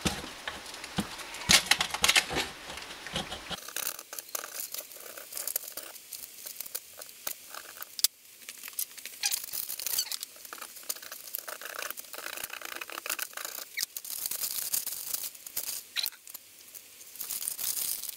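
Aluminium foil crinkling and rustling in irregular crackles as gloved hands fold and press it around a metal oil seal housing.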